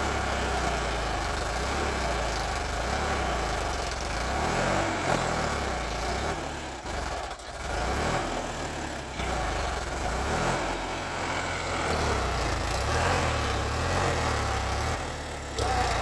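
Sonalika DI 745 tractor's diesel engine running steadily while the tractor works through loose soil, levelling a field. The engine note dips briefly about halfway through, then picks up again.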